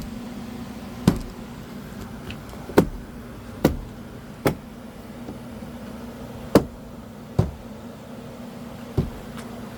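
Seven sharp knocks at uneven intervals, a second or so apart, as plastic trim clips are pushed and knocked into place on a car door. A faint steady hum runs underneath.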